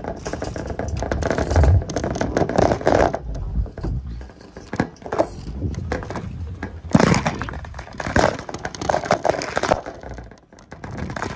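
Bicycle ridden over cracked asphalt, heard from on the bike: irregular rattling, knocks and jolts over a low tyre rumble on a rough, bumpy ride.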